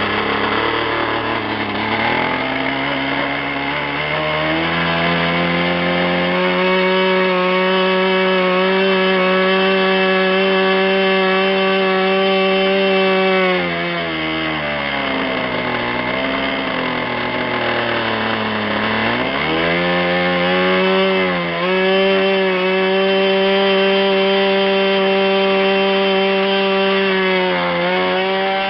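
O.S. 46 LA two-stroke glow model-aircraft engine running. Over the first several seconds it revs up to a high, steady whine. About halfway through it drops to a lower speed for several seconds, then opens up again, with brief dips in speed near the end.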